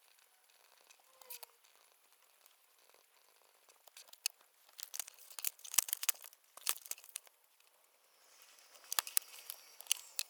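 Paper rustling and crinkling, in two bouts of sharp crackles, one about four seconds in and one near the end.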